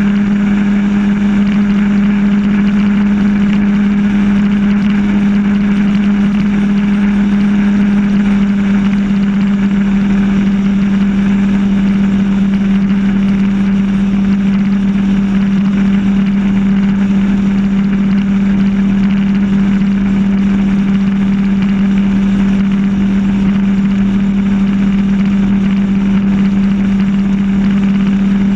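RIB's engine running steadily at low speed under way, a constant hum with the hiss of water along the hull.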